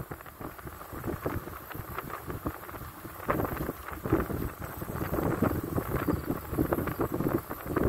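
Car rolling slowly along a gravel road, its tyres crunching and popping on the stones, with wind buffeting the microphone at the open window.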